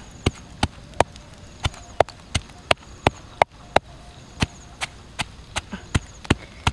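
Wooden pestle pounding fresh red chilies in a wooden mortar: steady dull knocks, about three a second.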